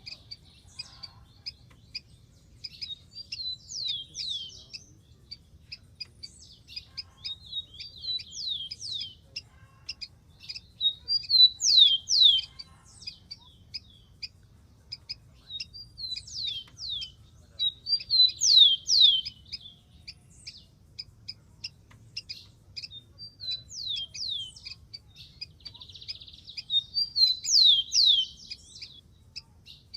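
Rufous-collared sparrow singing: short songs of whistled notes ending in quick downward-sweeping notes, repeated every few seconds. A steady series of faint, short high ticks runs beneath the songs.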